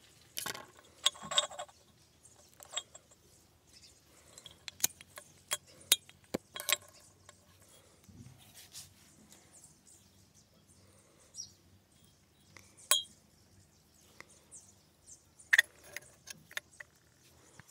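Scattered sharp clicks and clinks of small parts being handled on a tabletop: scissors, a small ring and plastic pieces of a garden bell's housing being fitted and threaded with string. The clicks come singly with short gaps, and a brief louder clatter near the end.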